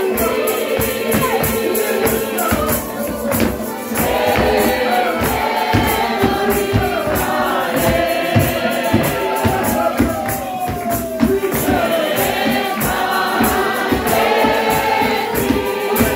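A Christian hymn sung by many voices together, with live band accompaniment and a steady percussion beat.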